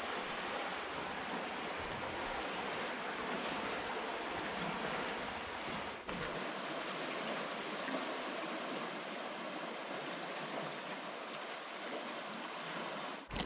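Steady rushing of a river rapid, an even noise of fast-flowing water with no distinct splashes, briefly broken by a short dip about six seconds in.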